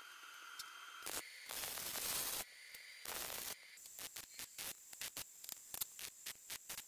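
Wire-feed (MIG) welder arc crackling and hissing while a round steel tube is welded onto a pulley. A couple of longer runs of about a second each are followed, over the last three seconds, by a rapid series of short stop-start bursts.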